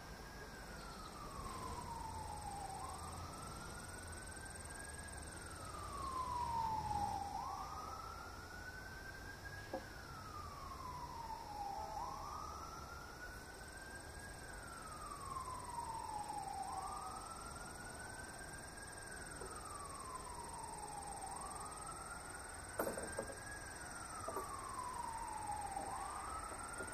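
Siren wailing, rising and falling in slow cycles about every four and a half seconds. A single sharp click comes near the end.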